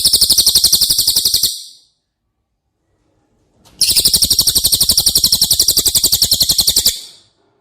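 Bird song: two fast, even rattling trills of sharp high notes at about a dozen notes a second. The first ends about one and a half seconds in; the second starts near four seconds in and runs about three seconds.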